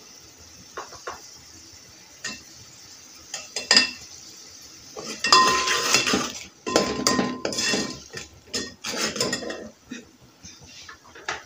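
Steel ladle scraping and clanking against the sides and bottom of an aluminium cooking pot as thick masala is stirred. A few light taps come first, then steady stirring from about five seconds in, with a brief metallic ring off the pot, tapering to a few taps near the end.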